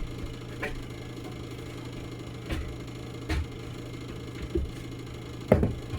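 A steady low machine hum with scattered short knocks and clicks, the loudest near the end.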